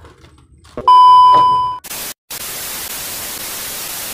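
Video-editing TV-glitch transition effect: a click, then a loud, steady test-tone beep of about a second, like the tone under TV colour bars, cutting to a steady hiss of TV static that drops out briefly once.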